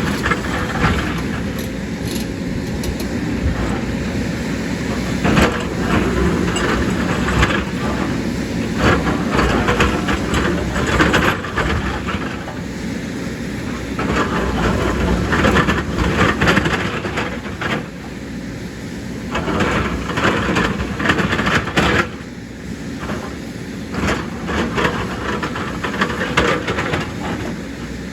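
Heavy JCB excavator working: its diesel engine running steadily under frequent metallic clanks, knocks and scraping as it digs and moves rock and soil.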